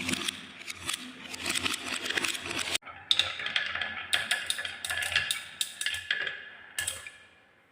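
Marbles clicking and clattering as they run down a marble run, dense quick clicks with short ringing tones. The sound breaks off abruptly about three seconds in, then the clicks resume, thin out and fade away near the end.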